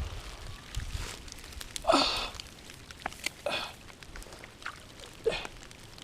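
Rain falling in a sudden heavy shower, heard as scattered drop ticks over a faint hiss, with three short swishing noises about two, three and a half and five seconds in.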